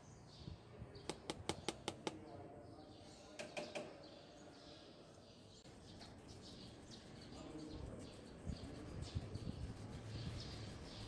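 Quiet background with faint high chirps and a quick run of about six sharp clicks about a second in, and a few more clicks near the four-second mark.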